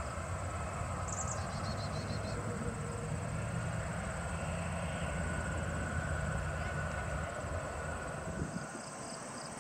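Twin-engine jet airliner climbing out after takeoff: a steady low jet-engine rumble with a faint higher whine, dropping away near the end. Faint insect chirping sounds early on, above the rumble.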